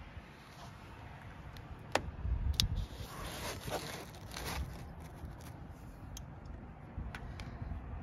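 Packed snow crunching and scraping as a hand handles drink cans set into it, with a few sharp clicks and a rumbly stretch of handling noise about two seconds in.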